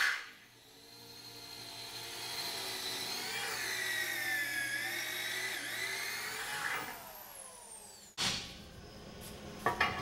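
A 1-inch reamer cutting through a bronze bushing: a whine with several pitches that sag and rise as the load changes, building up about a second in and stopping near seven seconds. About eight seconds in it breaks off into a rougher noise.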